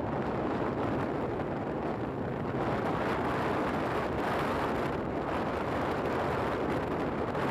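Steady wind rush on the microphone with the running noise of a moving motorbike.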